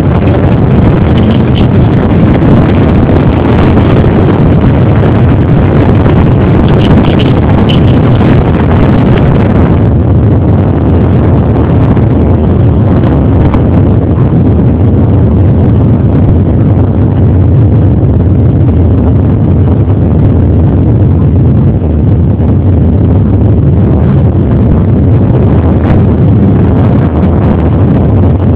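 Many off-road dirt-bike engines running at once, a loud continuous mass of engine noise that keeps the recording near full level throughout; the higher, sharper part of the sound drops back about ten seconds in.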